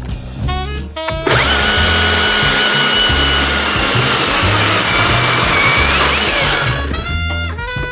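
Battery-powered chainsaw cutting into a birch trunk for about five seconds, its high motor whine sagging slightly under load, then stopping. Background music with a steady bass beat plays throughout.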